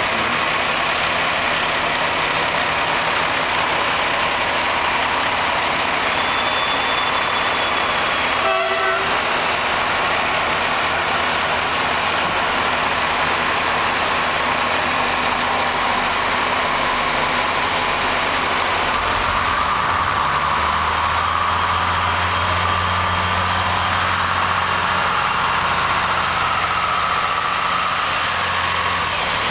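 Diesel multiple unit running at a standstill, a steady loud engine and machinery noise. About twenty seconds in, its low engine drone grows much stronger and holds until near the end.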